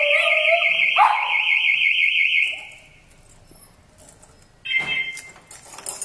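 Car alarm siren warbling rapidly while a miniature pinscher howls along under it, twice. The alarm cuts off about two and a half seconds in, and a short high-pitched sound comes about five seconds in.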